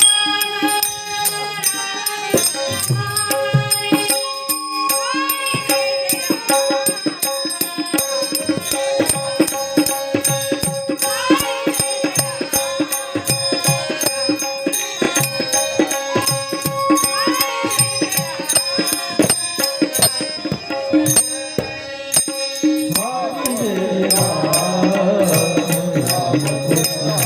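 Marathi varkari bhajan music: held, steady melodic tones over a fast, continuous beat of hand cymbals and drum.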